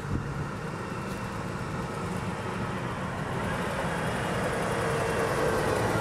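Volvo articulated hauler towing loaded log trailers drives past on a dirt road, its diesel engine running and its big tyres rolling on the gravel. The sound grows steadily louder as it draws near, and a steady whine comes in near the end.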